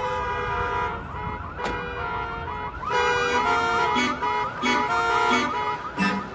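Musical vehicle horn playing a tune: a fast warble of repeated rising and falling notes, then a run of short stepped notes in the second half, like a siren-style melody horn.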